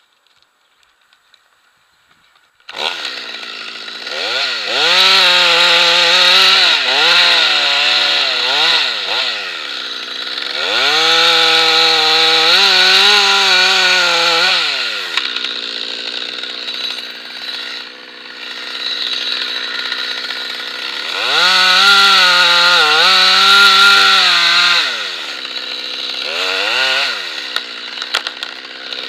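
Stihl chainsaw coming in about three seconds in, then revving to full speed three times to cut through beech limbs and dropping back to idle between cuts, with a short blip of the throttle near the end.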